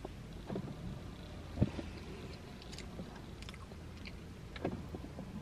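A person chewing a soft bite of cheesecake, with faint mouth clicks and a single soft knock about one and a half seconds in, over a low steady hum.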